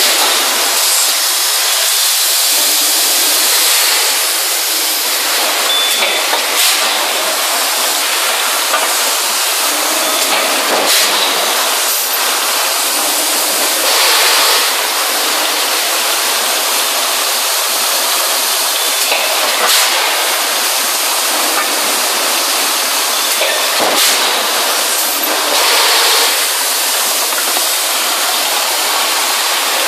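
Loud, steady hissing noise of a hot-forging press cell's machinery, with a few brief knocks and two short louder swells.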